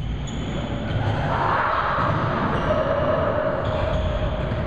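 Running footfalls and shoe scuffs of sprinters on a hardwood court floor.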